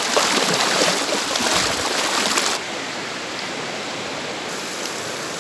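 Fast-flowing river rapids rushing in a steady wash of water noise, which drops to a softer level about two and a half seconds in.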